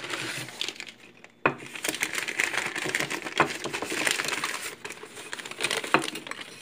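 Rummaging through a box of decorations: wrappings crinkling and rustling, with a few sharp knocks and clinks as items are handled, the sharpest about a second and a half in.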